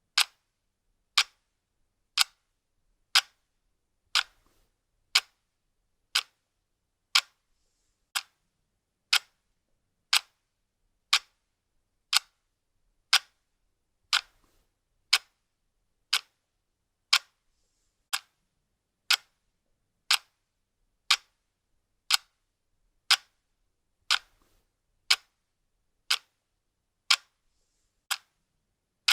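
Clock ticking, one sharp tick about every second at a steady even pace.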